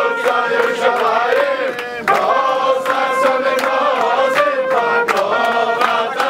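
Group of men singing and chanting together in unison, a loud crowd song, with sharp beats about twice a second.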